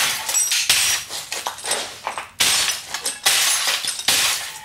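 An RCA television being smashed apart for scrap: a run of sharp crashing hits, about one a second, breaking its plastic and glass.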